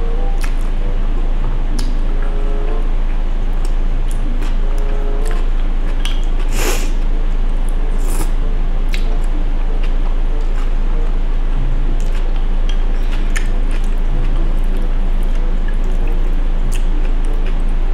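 A person eating spicy cold noodles close to the microphone: wet chewing sounds and scattered light clicks, with one longer noisy sound about seven seconds in, over a steady low hum.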